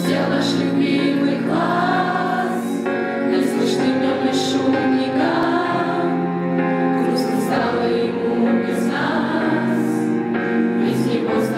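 A choir of school students, girls and boys, singing a song together in long held notes, with steady low accompanying notes underneath.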